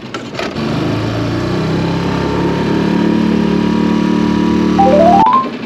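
Small outboard motor on a mini boat running steadily under way. Near the end a quick rising run of short tones sounds, and everything cuts off abruptly.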